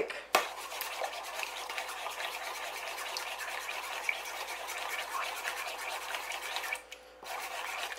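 A metal spoon briskly stirring egg and garlic into milk in a bowl, with quick scraping and clicking against the bowl. The stirring pauses briefly near the end.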